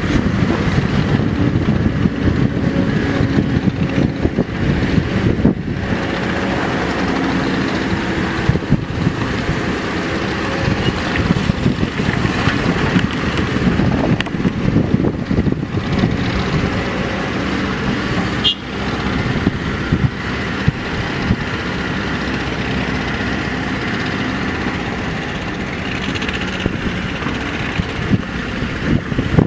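Kobelco SK200 hydraulic excavator's diesel engine running steadily under load while it digs and loads sand into a dump truck.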